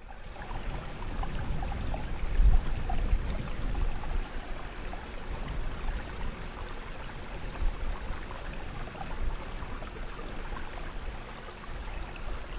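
Wind blowing across the microphone in uneven gusts, a low rumbling rush that swells about two and a half seconds in.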